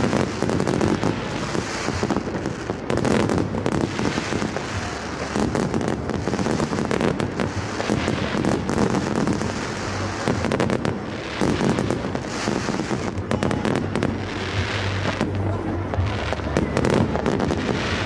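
Fireworks display: aerial shells bursting in a rapid, continuous stream of bangs and crackles.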